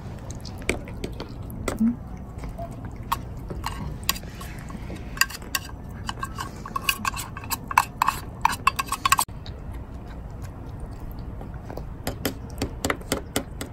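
A calico cat eating wet canned food from a plastic bowl, with wet, clicky chewing, while a plastic spoon stirs and scrapes food in the bowls. The clicks come thickest in the middle and again near the end.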